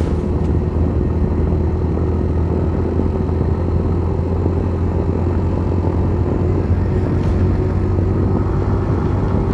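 Motorcycle engine running at a steady speed on the move, an even low hum that holds its pitch.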